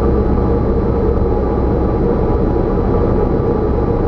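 Cessna 172's piston engine and propeller droning steadily in flight, heard from inside the cabin.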